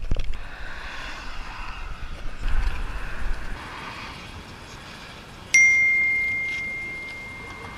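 A single bell-like ding, one clear tone that starts sharply about five and a half seconds in and fades slowly: a subscribe-button notification sound effect. Before it, a low steady noise like wind on the microphone.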